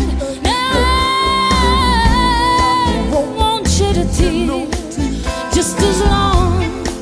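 Background pop song with singing: a wavering melody with one long held high note in the first half, over a steady low bass beat.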